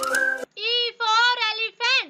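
Children's background music with a whistled tune, stopping about half a second in, followed by a high-pitched childlike voice in short sung phrases.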